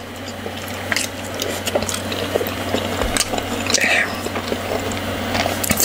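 Close-miked eating of fufu and soup: wet chewing and lip smacks, with many short sticky clicks.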